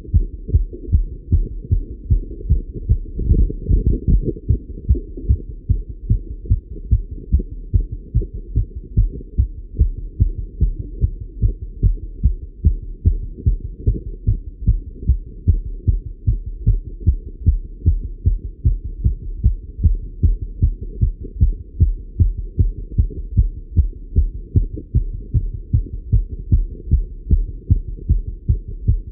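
A man's fast heartbeat heard through a Littmann stethoscope on his chest, raised by the exertion of cycling. It is a rapid, regular run of muffled, low thuds.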